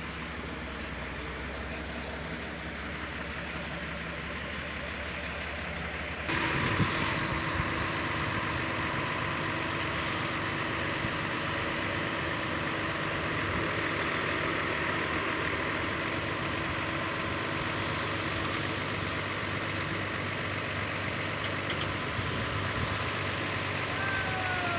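Engines of road-building machinery running steadily. About six seconds in the sound changes abruptly to a louder engine with a steady whine. A brief falling whistle comes near the end.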